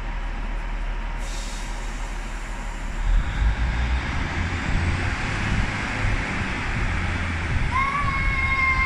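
Northern Class 156 diesel multiple unit pulling out: a short hiss of air brakes releasing about a second in, then the diesel engines power up about three seconds in into a heavier low rumble. A steady high-pitched squeal joins near the end.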